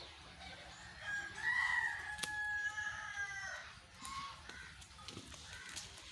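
A rooster crowing once: one long call of about two and a half seconds starting about a second in, rising and then held before tailing off.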